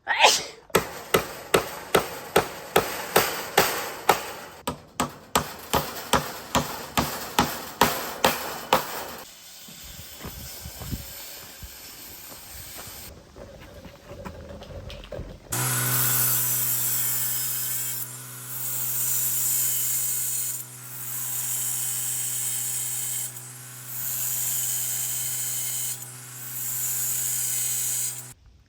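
Hammer blows on a wooden frame, about two a second, for the first nine seconds. Later a power tool runs in five long spells, each with a steady motor tone and a loud hiss.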